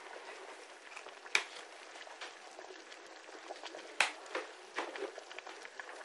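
Kitchen sounds as food is prepared by hand: a steady hiss with a few sharp knocks and clicks, the loudest about a second and a half in and about four seconds in.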